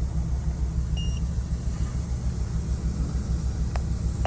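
Ford F450 Super Duty's engine idling roughly, its loudness pulsing unevenly: a shaking idle from misfires on cylinders 3 and 8 with a lean-running bank (codes P0174, P0303, P0308). A short electronic beep sounds about a second in and again at the very end.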